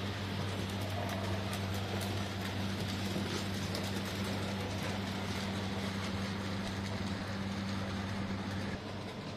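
OO gauge model trains running on the layout: a steady electric motor hum with faint irregular clicking of wheels over the track, getting quieter near the end.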